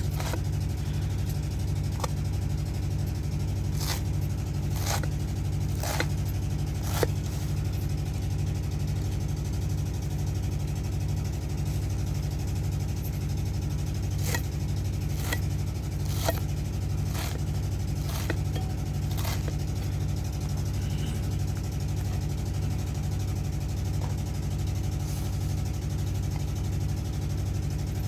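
A steady, low, engine-like drone with an even pulse, with scattered sharp clicks and taps over it.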